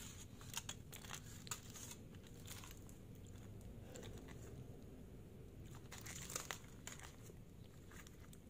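Aluminium foil crinkling as it is peeled open from around a wrapped kebab by hand: faint, irregular crackles, busier about six seconds in.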